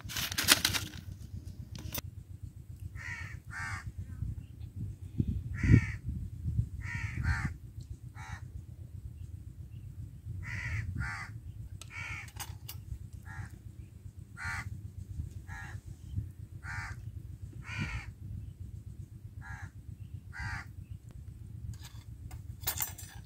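Crows cawing over and over, short calls often in pairs, every second or so, over a steady low rumble of wind on the microphone. A couple of low thumps stand out, about half a second and six seconds in.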